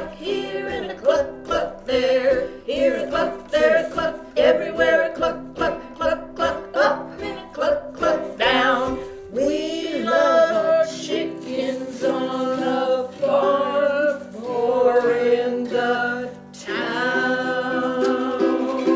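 A song: a singing voice over strummed plucked-string accompaniment.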